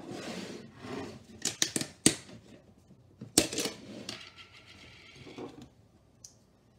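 Spice jars and a plastic yogurt tub being picked up and set down on a kitchen countertop: a run of sharp clicks and knocks, the loudest about two seconds in, then softer handling sounds.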